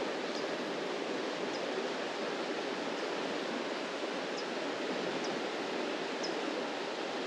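Steady rush of a small creek's flowing water, even and unbroken. A few faint, short high peeps sound now and then over it.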